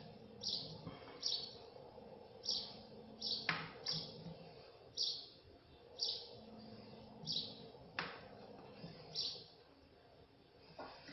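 A bird chirping: short high chirps repeated at irregular intervals of roughly a second, over a faint steady hum, with a couple of light clicks.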